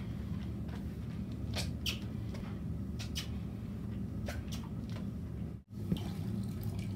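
A mop is being pushed and dragged across a parquet floor, giving short squeaks at each stroke, over a steady low hum. The sound breaks off briefly near the end.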